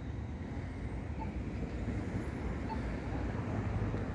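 Steady low rumble of an Alstom Flexity Freedom light-rail vehicle rolling slowly along its track, mixed with road traffic.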